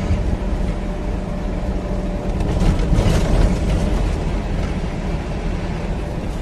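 Lorry driving, heard from inside the cab: a steady diesel engine rumble and road noise. About two and a half seconds in comes a louder spell of knocks and rattles as the truck jolts over a damaged road.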